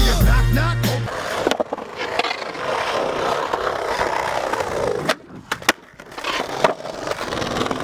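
Skateboard wheels rolling over concrete, with several sharp clacks of the board about five to seven seconds in. Hip-hop music with a heavy bass line cuts off about a second in.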